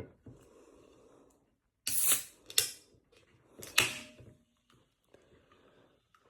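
Aluminium Sprite can being handled and opened: a sharp crack with a short fizzing hiss about two seconds in, then a click and another sharp crack or knock near four seconds.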